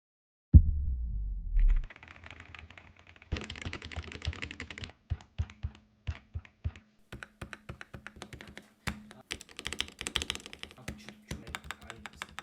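A low thump about half a second in, then typing on an AJAZZ AK820 mechanical keyboard with lubed red linear switches, foam dampening and silicone O-rings. The keystrokes come in fast runs with short pauses between them.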